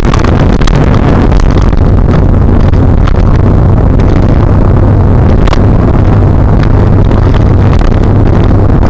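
Car driving at highway speed, heard from inside the cabin: a steady, loud low engine drone under road and wind rumble, with scattered clicks.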